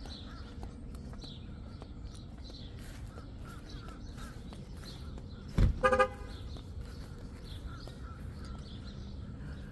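Outdoor background with faint bird chirps. A little past halfway there is a low thump, then two short, loud, honk-like tones in quick succession.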